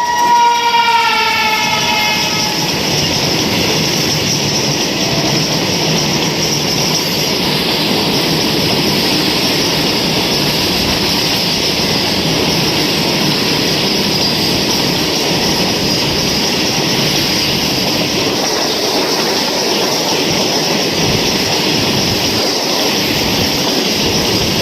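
Train horn sounding and fading out about two seconds in, then the steady rumbling rail noise of a moving train.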